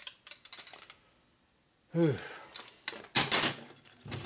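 Quick light clicks and rattles of hand tools on a workbench, then a short groan that falls in pitch about two seconds in, followed by knocks and rubbing as hands grip the engine's cylinder heads.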